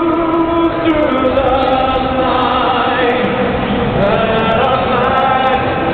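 Many voices singing together in a large stadium, holding long notes over the dense noise of the crowd.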